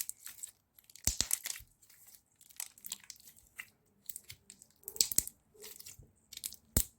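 Clear slime being poked and squeezed by hand, its trapped air bubbles popping in sharp crackling clicks that come in irregular clusters.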